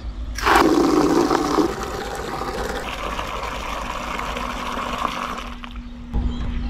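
Water running from an outdoor tap into a plastic bucket. It starts suddenly about half a second in, lower-pitched for the first second, then runs as a steady splashing hiss until it is turned off near the end.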